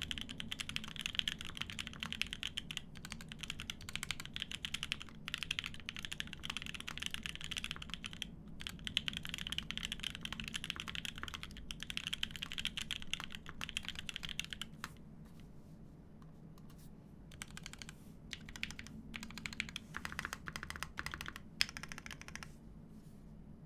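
Semo TKL mechanical keyboard with lubed Konpeitou switches, aluminium plate and GMK keycaps being typed on: fast, continuous keystrokes, slowing about fifteen seconds in to scattered, separate key presses.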